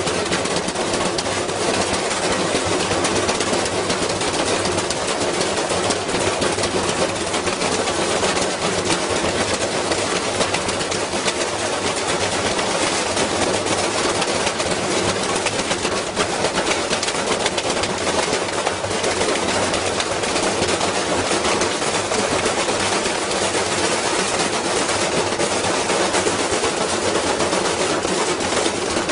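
Washing machine spinning hard with a heavy load put in to wreck it, banging and rattling rapidly and without letup.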